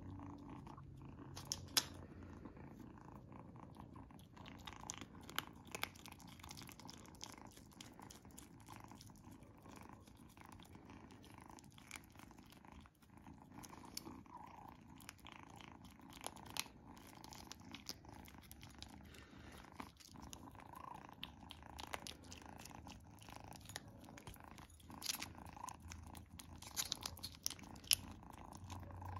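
A kitten licking and lapping a creamy paste treat from a squeeze tube: quiet, irregular wet smacking and clicking of its tongue and mouth, busiest near the end, over a low steady purr.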